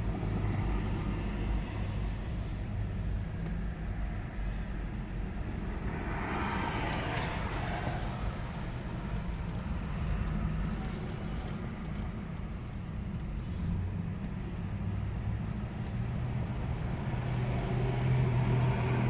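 Steady low vehicle rumble, like road traffic, with a brief hissing swell about six seconds in.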